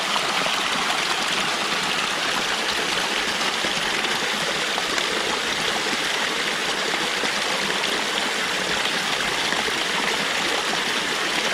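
Forest stream running: a steady, even rush of flowing water.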